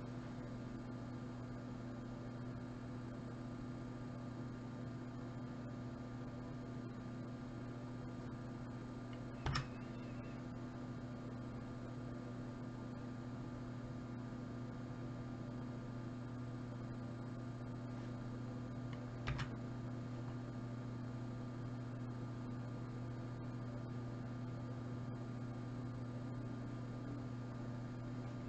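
Steady electrical mains hum. Over it, a single sharp computer key or mouse click sounds twice, about ten seconds apart, each one paging the spreadsheet down.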